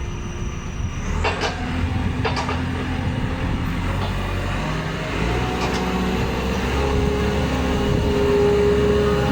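JCB 4CX backhoe loader's diesel engine running, with two sharp knocks in the first few seconds. From about five seconds in it grows louder, with a steady whine over the engine note.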